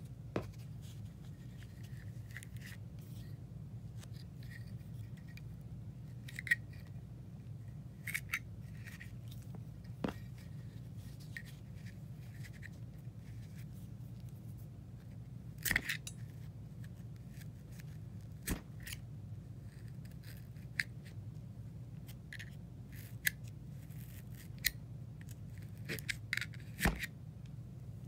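Wadding being stuffed into a Zippo lighter's steel insert: soft scraping and rustling, with scattered sharp clicks and taps against the metal case every few seconds. A steady low hum runs underneath.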